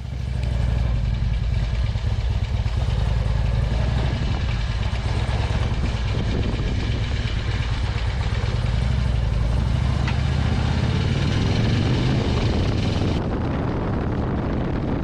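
Harley-Davidson Road King's V-twin engine running steadily under way, with no marked revving.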